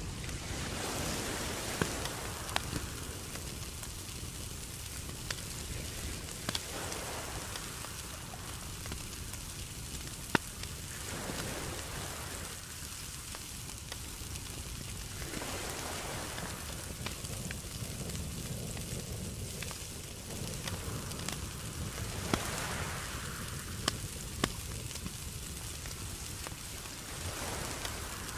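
Charcoal fire in a clay-pot mini grill with food sizzling over it: a steady sizzling hiss that swells and eases every few seconds, with scattered sharp crackles and pops from the coals.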